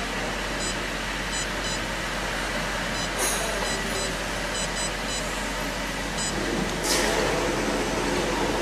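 Short high electronic beeps, one at each key tap on a Siemens Smart Line touch-panel keypad, over a steady background of workshop machine noise. A brief hiss comes about seven seconds in.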